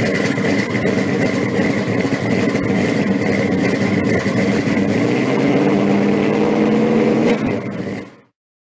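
A car engine running loudly, with a steady high whine above it, cutting off abruptly near the end.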